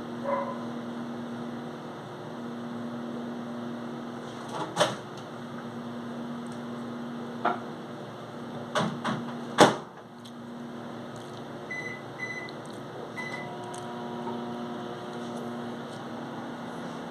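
A steady electrical hum with several sharp clicks and knocks, the loudest about ten seconds in, followed by three short high beeps.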